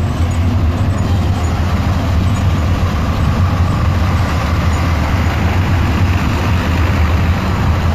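Steady low rumble of street traffic, with no distinct events.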